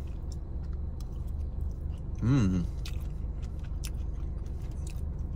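Close-miked chewing of a soft mouthful of food, with small wet mouth clicks, and a brief hummed voice sound about two seconds in. A steady low hum runs underneath.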